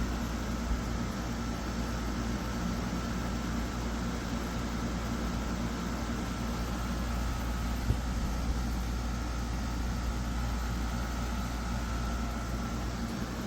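Portable air conditioner running steadily: a constant low hum and airflow noise with a faint high whine, and a couple of small clicks.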